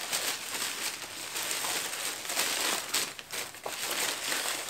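Tissue paper crinkling and rustling as it is pulled open around a shoe: a dense, continuous run of small crackles.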